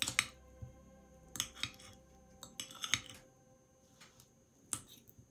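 Metal fork clinking and scraping against a glass bowl while mashing avocado, in irregular clusters of short clicks.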